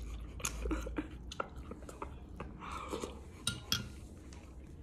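Quiet eating: a metal spoon clinking lightly against a ceramic bowl a few times, with soft chewing of a mouthful of chili and rice.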